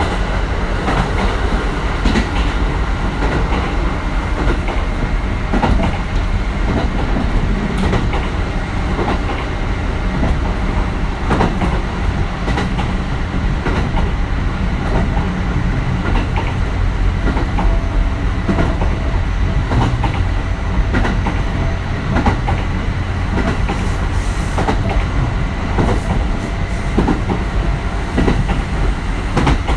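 Kintetsu 1420 series electric train running at speed: a steady heavy rumble with wheels clicking over rail joints again and again.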